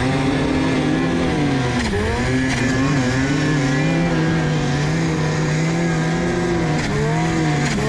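Turbocharged snowmobile engine running hard under throttle while the sled rides through snow, its pitch dropping and climbing back about two seconds in and again near the end, steady in between.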